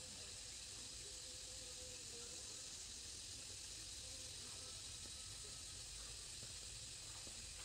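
Quiet countryside ambience: a faint, steady high-pitched hiss.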